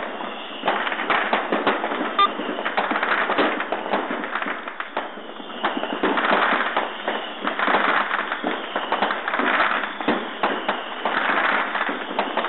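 Dense, continuous barrage of firecrackers and fireworks, many sharp cracks and bangs going off in quick, overlapping succession.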